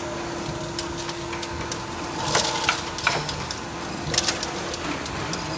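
Automatic blister cartoning machine running: a steady hum under a mechanical clatter, with clusters of sharp clicks a few times as its parts cycle.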